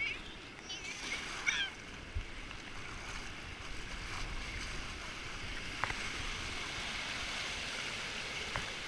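Shallow surf foaming and washing around a bodyboard, a steady rushing hiss of water that gets fuller from about three seconds in. A brief high child's voice comes about a second in.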